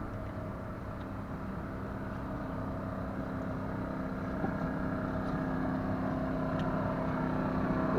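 A steady engine hum with several tones, slowly growing louder.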